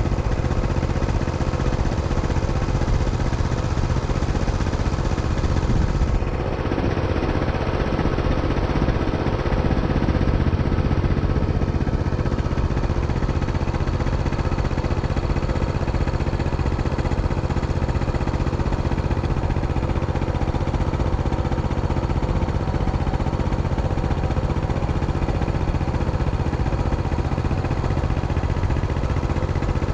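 Motor engine running steadily at idle, an even drone with no revving.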